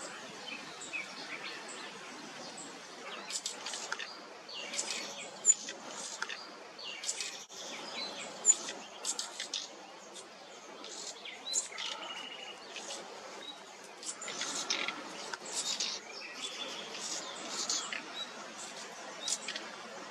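Juvenile common nightingale calling: short, high chirps and a few brief held whistles at irregular intervals, over a steady background hiss.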